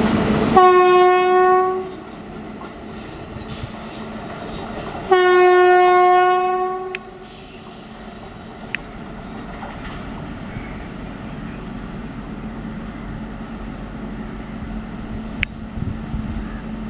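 Horn of a twin WAG-5 electric locomotive set, two long blasts at one steady pitch, the second longer at nearly two seconds. Between and after them comes the low, steady rumble of the approaching locomotives. At the very start, the loud rushing of a train passing close by cuts off abruptly.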